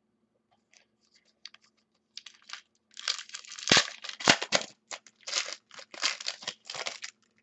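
Foil trading-card pack wrapper being torn open and crinkled in a quick run of rustles starting about two seconds in, loudest just past the middle.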